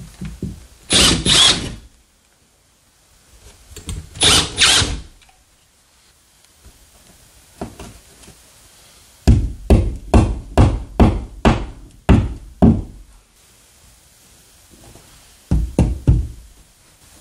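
Cordless drill boring into drywall in two short bursts. Then a claw hammer taps a plastic drywall anchor into the hole: about ten quick knocks, then three more near the end.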